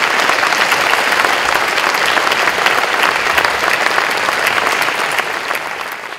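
Audience and on-stage group applauding: many hands clapping in a dense, steady patter that tapers off near the end.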